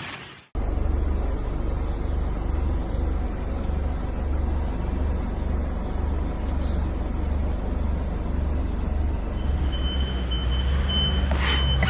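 Motor vehicle traffic in snow: a steady low engine rumble. Near the end come a few short high beeps and clicks.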